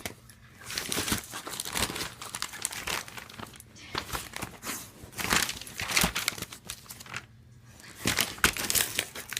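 Crinkling and rustling in irregular bursts, like crumpled packaging being handled or played with.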